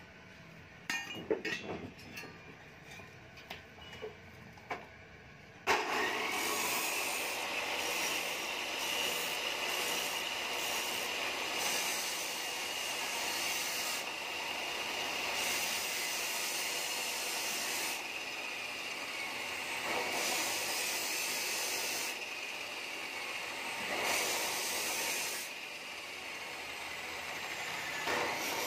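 A few light knocks of metal parts being handled, then about six seconds in an angle grinder starts up on a motorcycle muffler's steel shell. It gives a steady high whine and hiss that runs on, its pitch sagging slightly now and then as the disc bites.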